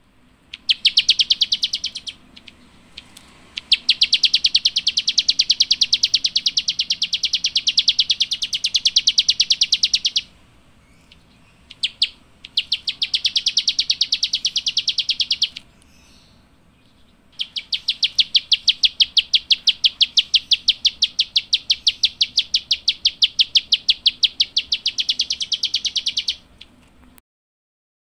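A small songbird, the one Indonesian bird keepers call klik-klik, gives rapid, evenly repeated high chattering notes. They come in four long bouts of several seconds each, broken by short pauses.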